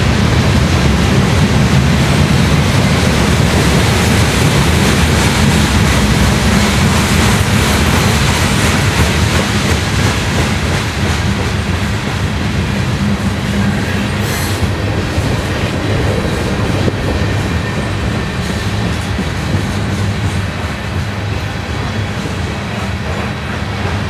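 Freight train cars rolling past, their steel wheels on the rails making a loud, steady rolling noise that eases slightly in the second half. A brief high-pitched squeal comes about halfway through.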